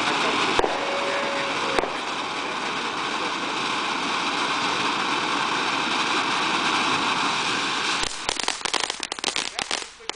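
Ground fountain firework spraying sparks with a steady, loud hiss, broken by two sharp clicks in the first two seconds. About eight seconds in the hiss gives way to dense, rapid crackling from a crackling fountain.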